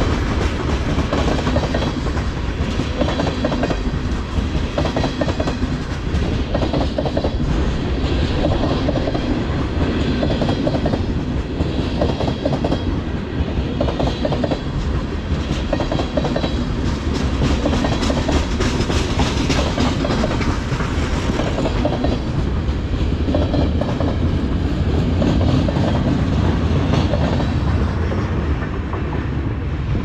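Freight train of loaded tank cars rolling past, steel wheels clicking over rail joints in a repeating clickety-clack over a steady rumble.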